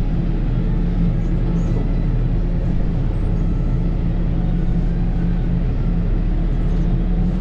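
Case Maxxum 125 tractor's diesel engine running steadily, heard from inside the cab.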